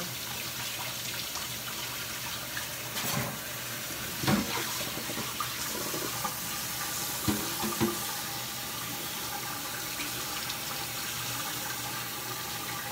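Water running steadily from a tap, with a few scattered knocks.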